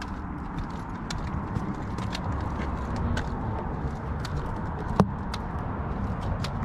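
Footsteps of people walking, a string of light steps about two a second over a low rumble, with one sharp click about five seconds in.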